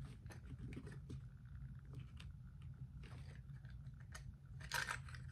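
Faint, scattered light clicks and two short rustles from small plastic bottles and tools of a lash-lift kit being handled, the louder rustle near the end, over a steady low room hum.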